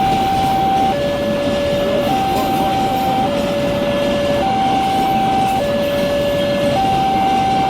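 Railway level-crossing early-warning alarm played through a horn speaker: a slow two-tone hi-lo alarm, each tone held just over a second. It sounds over the steady noise of a train passing the crossing.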